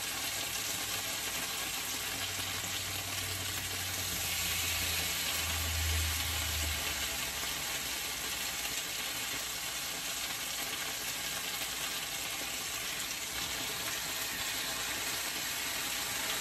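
Oxtails searing in hot olive oil in a skillet: a steady sizzle, with the grease popping because of liquid from the meat in the pan.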